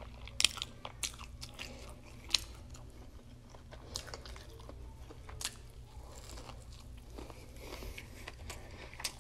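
Close-miked chewing of a crispy fried chicken sandwich: scattered short crunches and mouth clicks, over a faint steady low hum.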